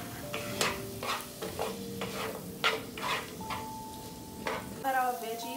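Butternut squash, carrot and onion frying in oil in a non-stick frying pan, sizzling steadily while a wooden spoon stirs them, scraping and knocking against the pan in irregular strokes.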